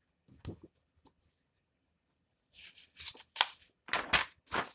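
Paper pages of a picture book rustling and flapping as the book is opened and its pages are turned: a short rustle about half a second in, then a run of louder rustles and flips in the second half.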